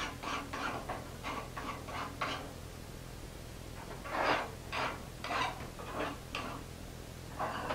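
Hand file stroking across the edge of a forged nut held in a vise, deburring the rough edges left where it was cut off the bar. There is a quick run of short strokes, about three or four a second, a pause of about two seconds, then slower strokes, with one last stroke near the end.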